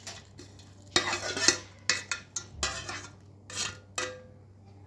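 Steel spoon scraping and knocking against a bowl as fried nuts and vermicelli are tipped into a steel pot of hot milk. There are several short, uneven clattering scrapes.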